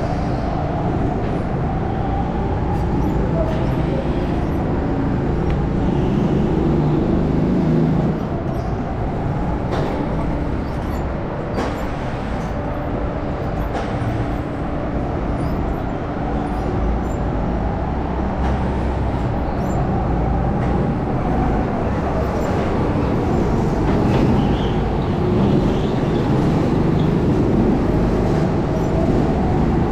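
Go-kart engine running on the track, its pitch rising and falling as the throttle is opened and eased.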